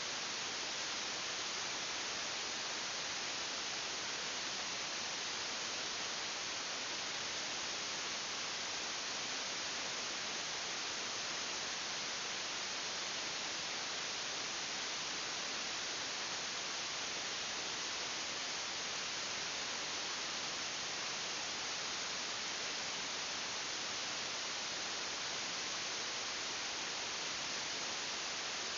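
Steady, even hiss that does not change at all, with no other sounds on top of it.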